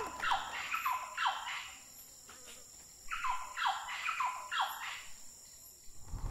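Bird calling in two runs of about four notes each, every note sliding down in pitch, with a pause of about a second and a half between the runs. A faint steady high-pitched insect drone lies underneath.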